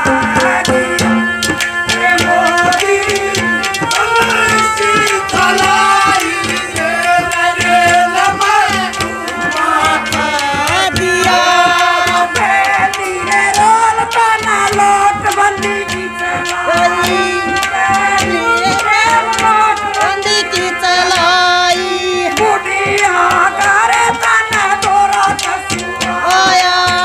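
A woman singing a Haryanvi folk song through a microphone and loudspeakers, with a hand drum keeping a steady beat.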